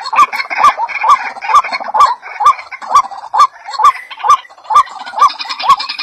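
A bird call repeated very evenly, about twice a second: each one a sharp click with a short rising note.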